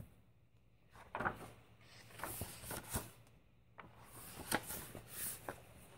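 Paper pages of a hardcover picture book being turned by hand: rustling and flapping paper with small taps, in two spells, about a second in and again near four seconds in.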